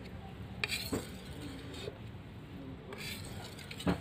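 Steel golok (machete) blade being stroked across a natural whetstone: a few short, light scraping passes. The loudest comes near the end.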